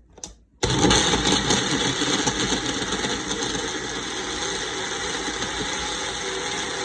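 Magic Bullet blender clicking as the cup is pressed on, then its motor starting and running steadily, blending vanilla ice cream with brandy and creme de cacao.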